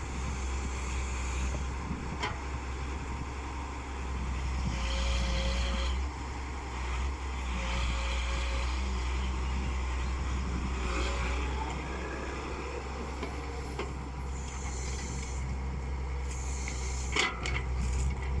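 Excavator's diesel engine running with a steady low rumble, with repeated short bursts of hiss and a sharp knock about 17 seconds in.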